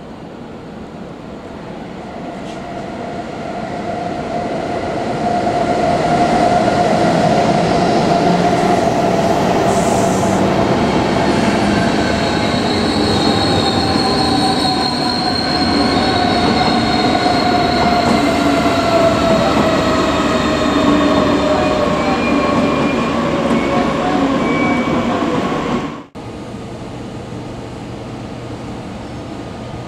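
Intercity train with a BR 101 electric locomotive rolling into the platform as it slows. The wheels squeal in several tones that slide slowly downward, growing louder over the first few seconds. The sound breaks off suddenly near the end, and a quieter steady hum follows.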